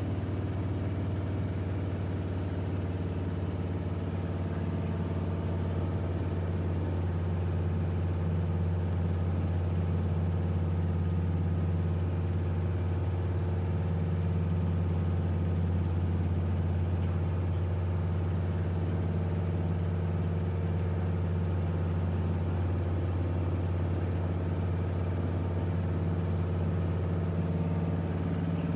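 Steady low drone of an aircraft engine heard from aboard the aircraft, a deep even hum with fainter overtones above it and no change in pitch.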